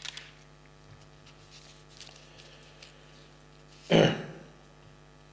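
Faint steady mains hum, with a man clearing his throat once, briefly and loudly, about four seconds in.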